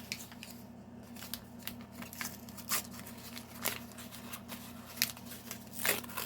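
Small toy blind-pack packaging being handled and opened by hand: irregular crinkling, tearing and clicking of plastic, with a few sharper crackles through the middle and near the end, over a faint steady hum.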